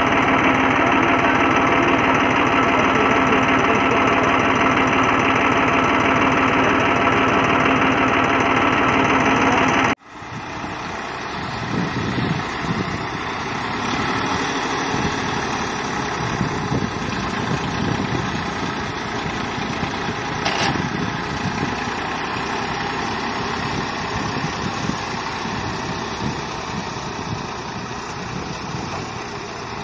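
Massey Ferguson diesel tractor engine idling steadily. After a sudden cut about a third of the way in, a tractor engine runs working a front loader, its sound uneven and rising and falling as the bucket digs and lifts soil.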